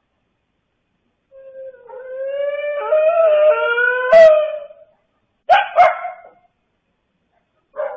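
A long, wavering wailing cry that rises a little in pitch, starting about a second in and lasting some three seconds, followed by two short sharp cries in quick succession.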